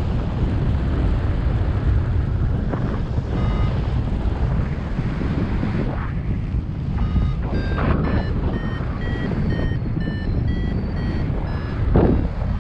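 Steady wind noise over the microphone in flight, with a paragliding variometer's short electronic beeps coming in after a few seconds and growing more frequent, their pitch stepping higher: the sign of the glider climbing in lift.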